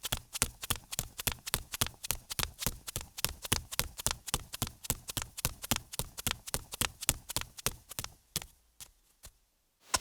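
Rapid, even footsteps, about four to five steps a second, that slow to a few last steps about eight seconds in and stop.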